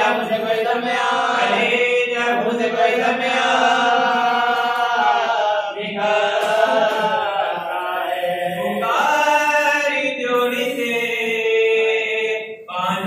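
A man chanting a devotional recitation unaccompanied into a microphone, in long drawn-out melodic phrases, with a short breath pause about six seconds in and another near the end.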